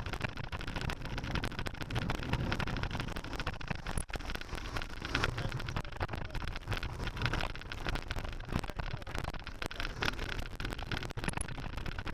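Wind buffeting the microphone over the steady road noise of a moving vehicle.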